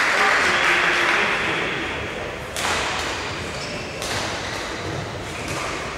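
Audience applause dying away in a large sports hall, then two sharp badminton racket strikes on the shuttlecock about a second and a half apart, ringing briefly in the hall.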